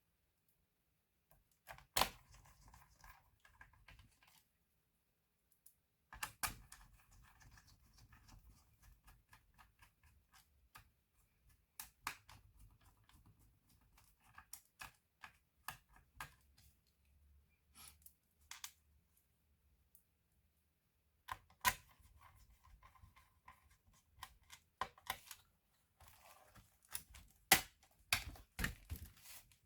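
Irregular sharp clicks and light taps of hard plastic and metal laptop parts being handled, in clusters with short silent pauses.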